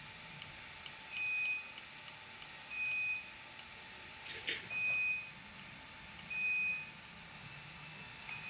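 Electronic beeper sounding a short high beep about every one and a half to two seconds, five times, over a steady faint high-pitched whine. A single click comes about four and a half seconds in.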